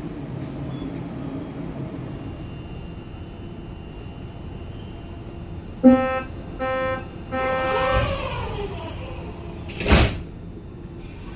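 Metro train door-closing sequence heard from inside the carriage: three warning beeps about six seconds in, then the sliding doors run shut and close with a sharp thump near the end, over the train's steady hum.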